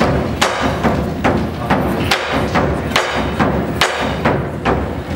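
Chinese lion dance drum and cymbals playing a steady driving beat, with a ringing clash about twice a second over the booming drum.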